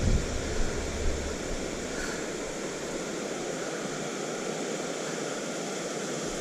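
Steady rush of flowing creek water, with a low rumble in the first second or so.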